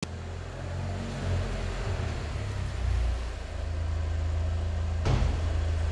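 Audi TT 1.8T's turbocharged four-cylinder engine running as the car pulls in and settles to an idle, a steady deep exhaust drone. A brief sharp burst of sound comes about five seconds in.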